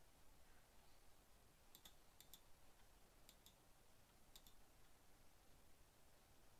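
Faint computer mouse button clicks: four quick double clicks about a second apart, over near-silent room tone.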